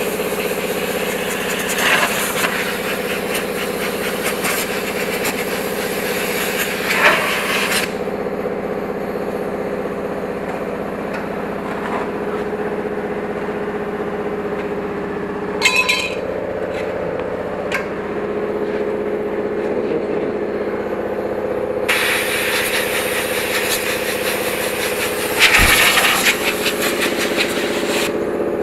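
A machine runs with a steady engine-like hum, and a few knocks and rubbing sounds come from the metal catalytic converter casing as it is turned and handled.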